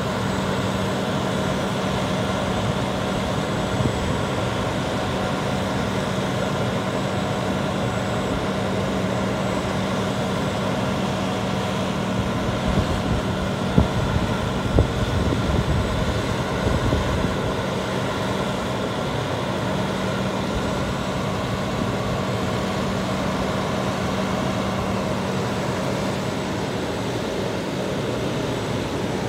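Diesel engine of an International 7400 truck running steadily with a constant hum, driving the hydraulics of an Elliott G85R sign crane as its boom telescopes upward. A couple of short knocks stand out about halfway through.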